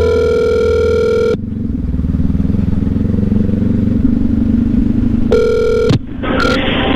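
Telephone ringback tone of an outgoing call, heard through a phone: the end of one ring, then about four seconds later a second ring that cuts off short as the call is answered. A steady low engine rumble runs underneath.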